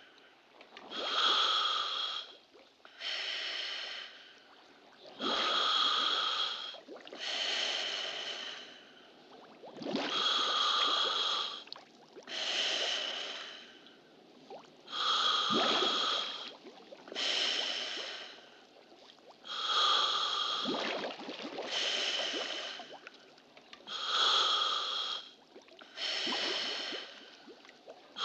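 A person breathing slowly and heavily, close up: a long, loud breath about every two and a half seconds, inhales and exhales alternating, about a dozen in all.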